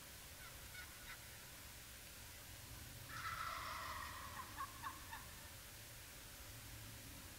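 A wild turkey gobbler gobbles once about three seconds in: a rapid rattling call lasting about a second, trailing off in a few short notes.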